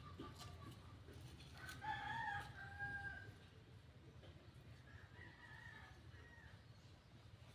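A rooster crowing, one crow of about a second and a half about two seconds in, then a fainter crow about five seconds in.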